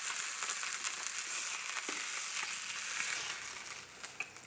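Snapper fillets sizzling as they pan-fry in olive oil, a steady frying hiss that grows quieter near the end.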